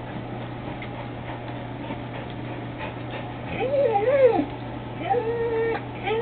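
A pet animal whining in long drawn-out calls, the first starting about three and a half seconds in: one wavering whine that falls away at its end, then a second held at a steady pitch, and a third just beginning at the end. A steady low hum sits underneath.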